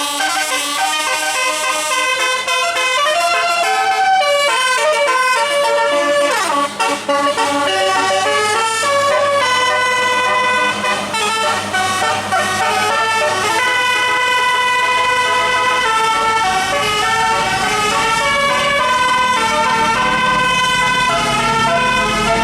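Bus telolet horn, a set of multi-tone electric horns playing a tune as a quick run of changing notes, with the bus's engine running low underneath.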